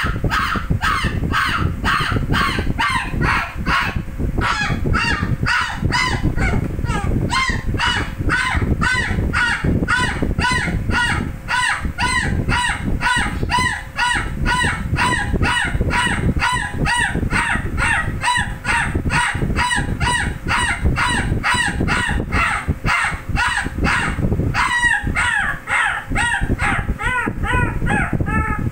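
A six-week-old puppy sick with parvovirus crying over and over, short high yelping cries about three a second, with a low rumble underneath.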